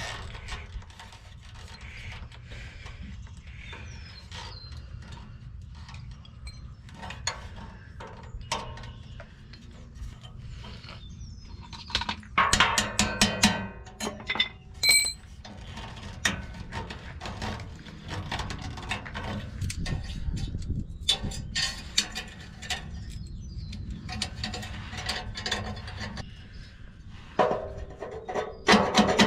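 Hand tools working on a truck's exhaust: scattered metal clicks, knocks and ratcheting, with louder clattering about halfway through and again near the end, and a short metallic ring in the middle.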